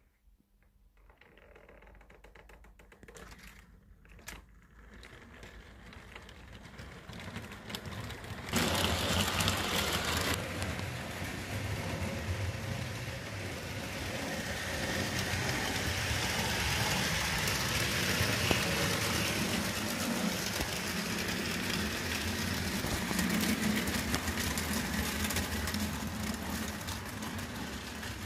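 HO-scale model electric locomotive and coaches running on sectional track: a fast, even clatter of small wheels over rail joints with a low motor hum. It starts faint, builds, and turns much louder about eight seconds in, then stays steady.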